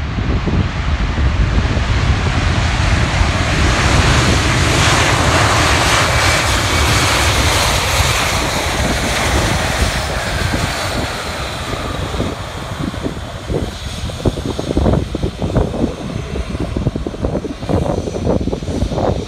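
Jet engines of a Philippine Airlines Airbus A320 rolling along the runway after landing and passing close by. The engine noise is loudest a quarter to halfway in, with a whine that falls in pitch as the plane goes past, then eases as it moves away. Wind buffets the microphone in the second half.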